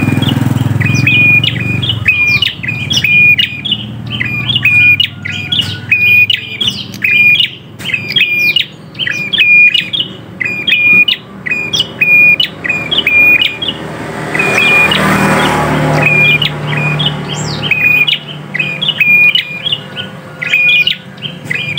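Caged prinia (prenjak) calling vigorously and nonstop: sharp, high chirps repeated several times a second in rapid series broken by short pauses.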